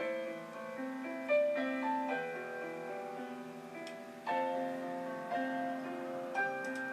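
Background music: gentle piano playing held notes and chords.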